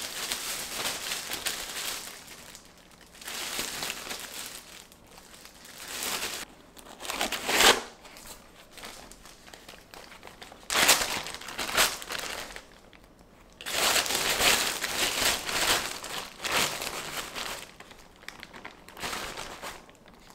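Thin plastic bags crinkling in repeated bursts as they are handled: a clear bread bag and a Glad Flex'n Seal freezer zipper bag being pulled open. The sharpest crackle comes about eight seconds in.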